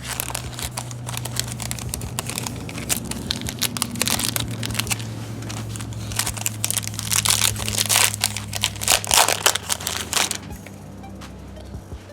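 A trading card pack's wrapper being crinkled and torn open by hand, a dense run of irregular crackles that thins out near the end, over background music.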